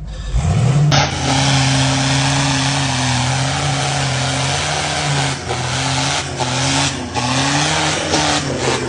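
Off-road 4x4's engine revving up within the first second and then held at high revs, the pitch dipping and rising a little, over a loud, steady rush of noise.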